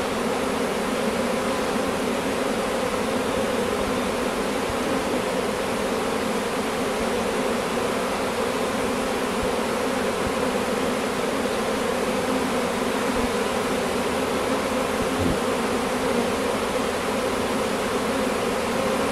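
A newly caught swarm of honeybees buzzing steadily as it settles into a hive: one dense, unbroken hum of many wings.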